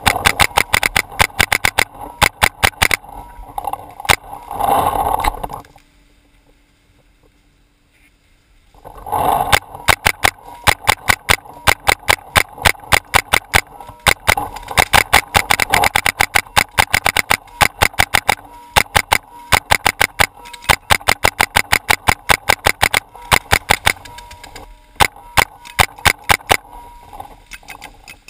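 Paintball markers firing in rapid strings, several sharp shots a second, with a brief gap of near silence partway through. A short muffled noise comes just before and just after the gap.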